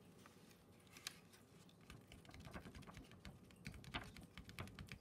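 Faint crinkling and light tapping of a folded sheet of paper as leftover embossing powder is tipped off it back into its pot: a scatter of small soft ticks, thicker in the second half.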